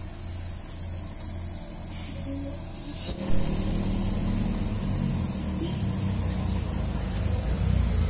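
A machine hums steadily. About three seconds in it gets louder, with a fuller low hum and a hiss in the highs that then hold steady.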